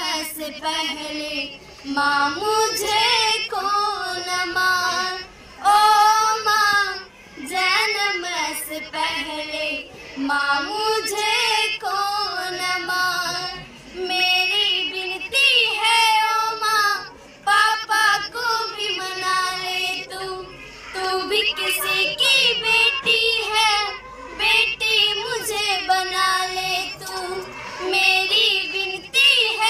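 A song in a high singing voice, its pitch bending and wavering, in phrases of a few seconds with short breaks between them and little instrumental backing.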